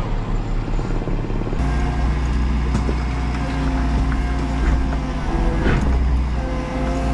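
A helicopter's rotor chop over a running engine for about the first second and a half, then the Menzi Muck M335 walking excavator's engine running steadily from inside its cab, a low hum with several whining tones and a few light knocks.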